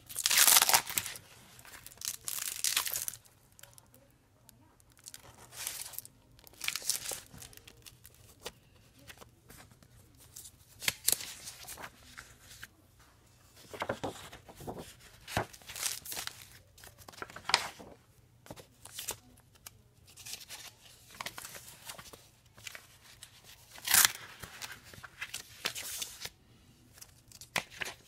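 Clear plastic folders being handled, their sleeves crinkling and rustling in irregular bursts a second or two apart. The loudest bursts come near the start and near the end.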